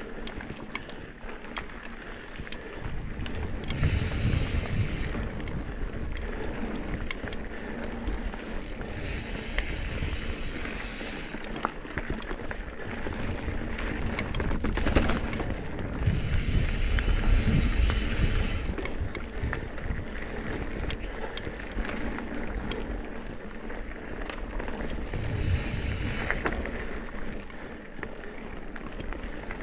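Trek Top Fuel mountain bike ridden along dirt singletrack: tyres rolling over the trail with many sharp rattling clicks from the bike over roots and rocks, and wind rushing over the microphone in several surges as speed picks up.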